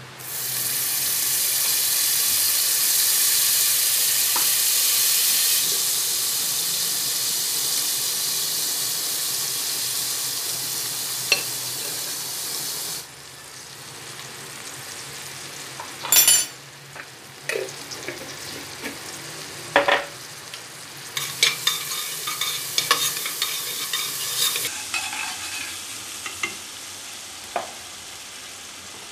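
Hot oil and ghee sizzling in a pressure cooker as whole spices fry. A loud, steady sizzle cuts off abruptly about thirteen seconds in. Quieter frying follows, with spoon knocks against the pot and bursts of crackling as ginger-garlic paste goes into the fat.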